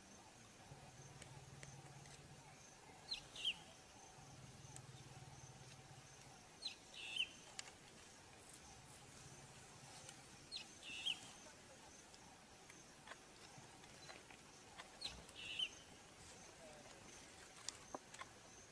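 Quiet grassland ambience with a bird giving a short, high two-note call about every four seconds, five times, over a faint low hum that comes and goes.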